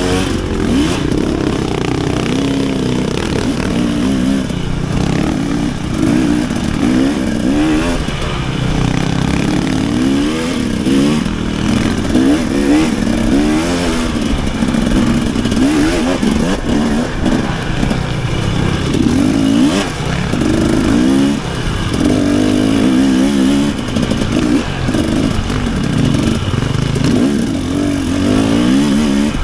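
Dirt bike engine working hard as it is ridden, its pitch climbing and dropping back over and over with the throttle.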